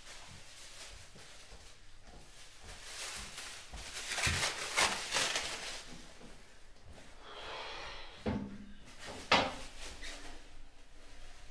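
Footsteps and rustling on a hard floor, then two sharp knocks about a second apart, the second the loudest.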